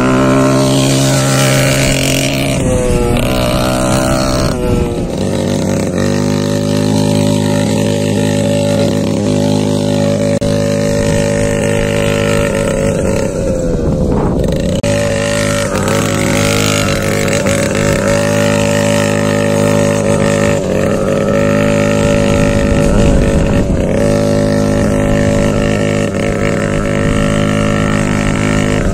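Small two-stroke brushcutter engine with a straight-through exhaust, driving a homemade go-kart. The pitch rises and falls over the first few seconds, then holds steady, with a brief dip about halfway through.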